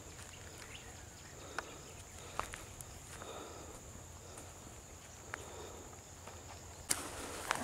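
Steady high-pitched insect drone over quiet outdoor ambience, with a few faint clicks scattered through and a sharper crack near the end.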